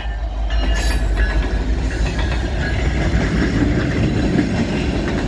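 CN freight train passing close by: diesel locomotives running and wheels rolling on the rails in a steady, loud rumble that builds about two seconds in.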